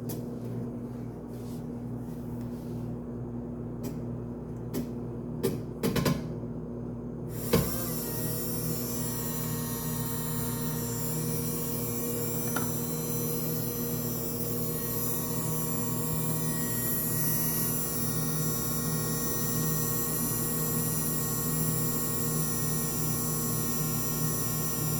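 Electric motor hum of a mini washing machine, with a few clicks about five to six seconds in and a sharp click at about seven and a half seconds, after which a steady higher whir and hiss join the hum and run on.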